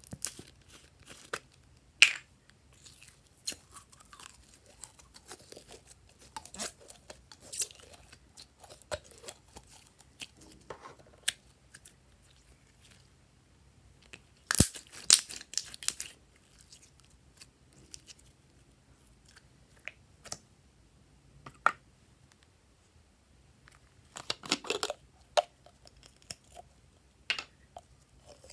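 Glossy slime squeezed out of a plastic bottle-shaped container and handled with bare hands: scattered short sticky crackles and clicks, with a denser run about halfway through and another near the end.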